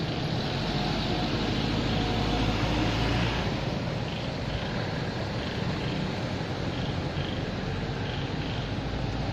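Steady low background noise with a constant low hum, swelling slightly and easing off about three seconds in. From about four seconds in a faint high chirp repeats in pairs, about once a second.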